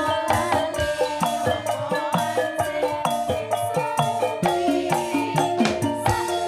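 Campursari band playing an instrumental passage: held melody notes over a quick, even run of struck percussion and drum beats.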